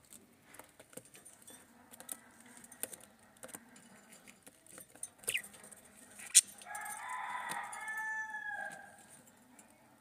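Budgerigar sounds: scattered small clicks and scratches, a short falling chirp about five seconds in, and a sharp click. Then comes a harsh, raspy call lasting about two seconds, the loudest sound here.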